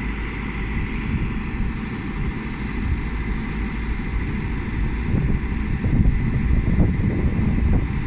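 Caterpillar backhoe loader's diesel engine running steadily at low revs, with a faint steady high whine over it.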